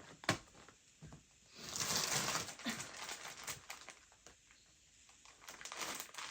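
Packaging rustling and crinkling as snack packets are handled, with a sharp tap just after the start and a longer rustle about two seconds in.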